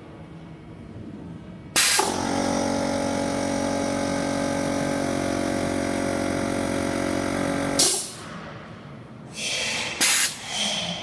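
A welding machine switches on with a click and runs with a loud, steady electrical hum for about six seconds, then cuts off with another click. Short hisses of air and a further click follow near the end.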